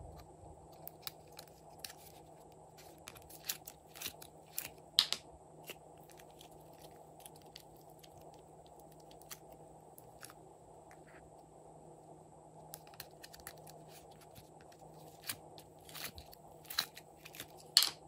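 Scattered sharp clicks and crackles from hands handling slime add-ins: a plastic pill organizer and soft clay being worked over a dish of slime. The clicks come in two clusters, the first a few seconds in and the second near the end, over a faint steady hum.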